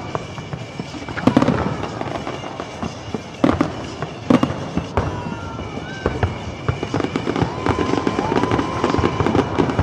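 Aerial fireworks bursting: several sharp bangs in the first half, then a denser crackle with a few drawn-out whistling tones near the end.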